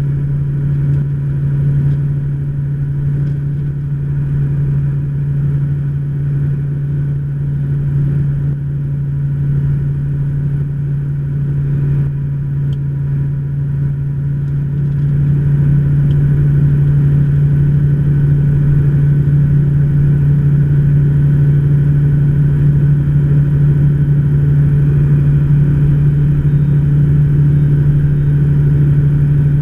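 Rotax flat-four engine and propeller of an HK-36 Super Dimona motor glider running at a steady pitch in flight, heard from inside the cockpit. It gets louder about halfway through.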